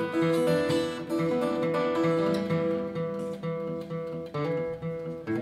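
Acoustic guitar played in a steady rhythm, repeated bass notes under ringing chords.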